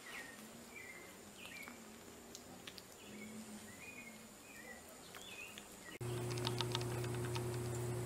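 Faint high chirping calls repeating about once a second over quiet background noise. About six seconds in the sound cuts abruptly to a louder steady low hum with a quick run of clicks.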